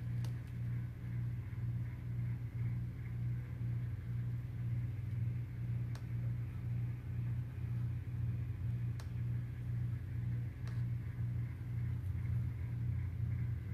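Steady low machine hum, with a few faint ticks about six, nine and eleven seconds in.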